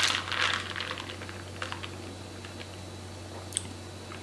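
Ice cubes clinking against the sides of a jar as an iced coffee is stirred with a plastic straw. A quick run of light clicks over the first two seconds or so thins out, with a single click near the end.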